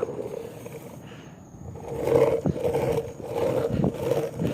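Skateboard wheels rolling on pavement, a rough rumbling noise that swells about two seconds in, with a few knocks over joints in the surface.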